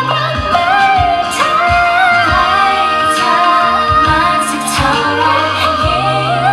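Pop song with a female vocal melody over a low bass line and a regular kick drum.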